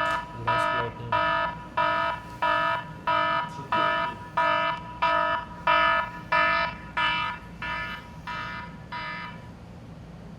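Mobile phone alarm beeping in a steady repeating pattern, about three beeps every two seconds, each beep a bright multi-tone chime. The last beeps are fainter, and it stops about nine seconds in as the phone is switched off.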